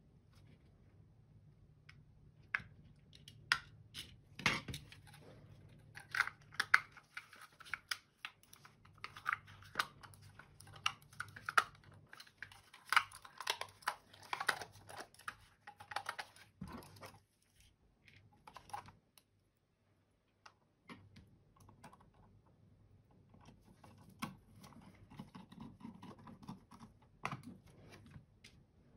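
Irregular sharp clicks and small plastic taps from a computer mouse's plastic parts being handled and fitted back together. They come in busy clusters, with a short pause past the middle.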